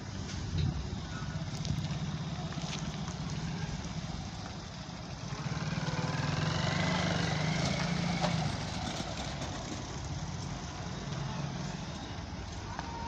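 Motorcycle engine passing close by over a level crossing, loudest from about five to eight seconds in, with road traffic noise around it.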